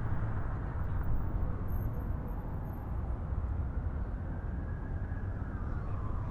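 City street ambience: a steady low rumble of road traffic, with a faint tone gliding down in pitch near the end.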